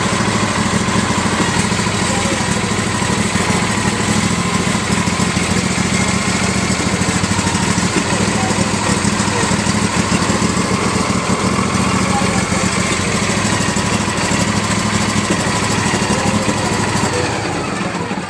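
The V-twin Briggs & Stratton engine of an Ariens riding lawn mower runs steadily, freshly filled with new oil and a new oil filter. The sound dies away near the very end.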